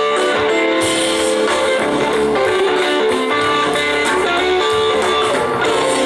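Live blues-rock band playing an instrumental stretch led by electric guitar, with sustained notes and some sliding pitch bends over the band.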